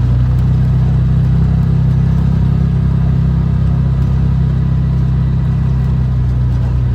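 Vehicle running at a steady speed: a loud, even, low drone of engine and road noise with no change in pitch.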